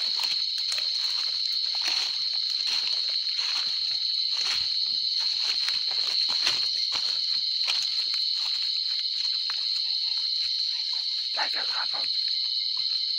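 Crickets chirping in a steady high-pitched chorus, with irregular rustling and crunching from someone walking through undergrowth.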